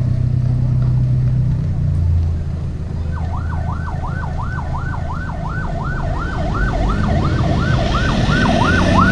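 Ambulance siren in a fast yelp, its pitch sweeping up and down about three times a second. It starts about three seconds in and grows louder as the ambulance approaches, over a low engine rumble and building road noise.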